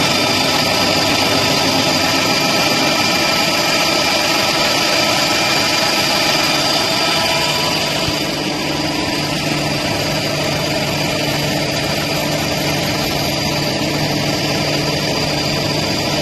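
Deburring machine for thick gas-cut steel plate running steadily: a continuous mechanical drone with a high whine, and a lower hum that comes in about eight seconds in.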